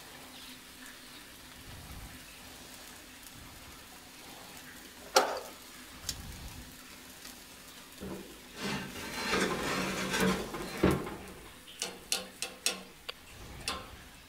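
Steak sizzling as it sears on a braai grate under strong top heat from glowing coals: faint and steady at first, louder for a few seconds from about eight seconds in. A sharp click about five seconds in and several short clicks and knocks near the end.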